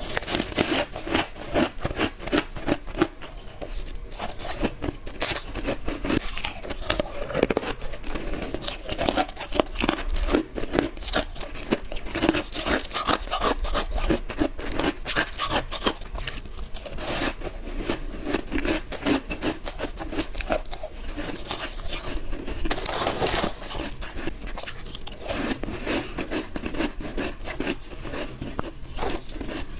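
Mouthfuls of white ice being bitten through and crunched between the teeth: a dense, uneven run of sharp crunches.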